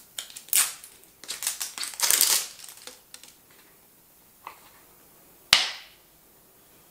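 Plastic wrapping crinkling and tearing as it is picked off a lotion bottle for about three seconds. A faint click follows, then a single sharp click of the bottle's plastic flip-top cap snapping open.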